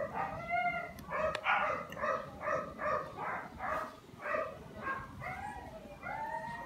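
A dog yipping and whining in a run of short, high calls, about two a second.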